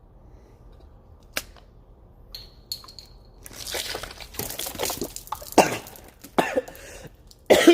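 A person coughing in a few harsh, short bursts in the second half, after a single click and a brief faint high tone.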